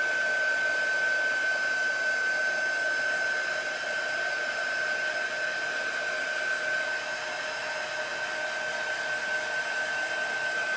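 Handheld craft heat tool blowing steadily with a high, constant whine while it dries wet fabric ink on a T-shirt.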